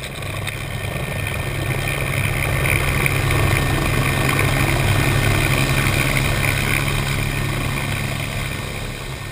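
Agusta A109S twin-turbine helicopter lifting off, its main rotor beating and engines running at takeoff power, with a steady high whine over it. The sound builds over the first few seconds and eases slightly near the end as the helicopter climbs away from the ground.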